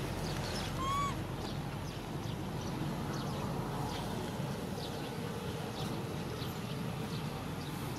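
A baby macaque gives one short, arched coo about a second in, over steady outdoor background noise with faint high chirps.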